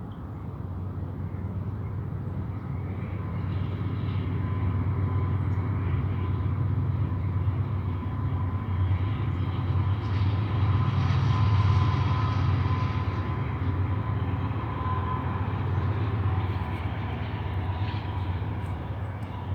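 Freight train passing, its diesel distributed power unit's engine drone building to a peak about halfway through and then easing off, over the rumble of rolling cars. A thin steady whine sits above it.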